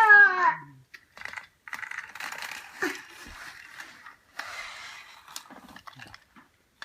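Plastic toy trains clicking and rattling in short irregular spells, after a child's brief 'Ah!'.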